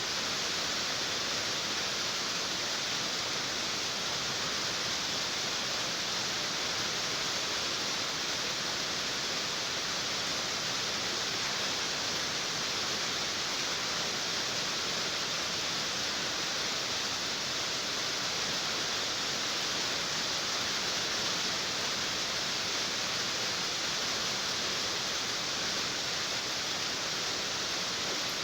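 Rain on a tin roof: a dense, steady hiss of drops with no let-up or change.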